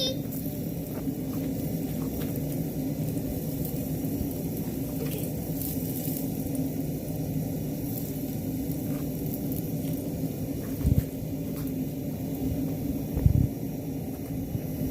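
Single-burner propane forge burner running with a steady low rushing noise, with a few faint ticks and two short dull knocks in the second half.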